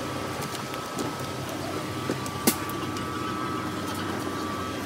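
Steady hum of an airliner's air-conditioning and power systems, with a thin high whine running through it. One sharp click about halfway through.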